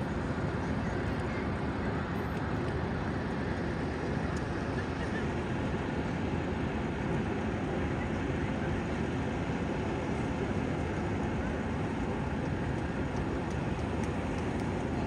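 Fire engine running its pump, a steady, even rumble with no breaks.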